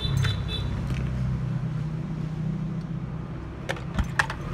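Hot-air rework station blowing with a steady whirring hum, with a few sharp clicks near the end.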